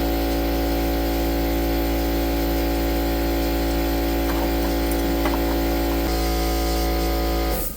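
A machine with a motor running steadily: a loud, even hum with several steady tones and a hiss on top, which stops abruptly near the end.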